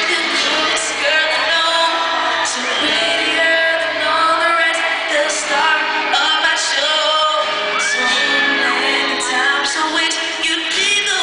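Live acoustic pop song in an arena: a male singer with acoustic guitar, and the audience screaming over the music.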